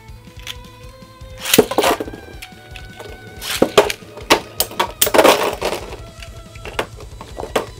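Spinning Beyblade tops, a 3D-printed bey against a Dynamite Battle bey, clashing in a small stadium: several loud hard clacking hits in quick clusters, over steady background music.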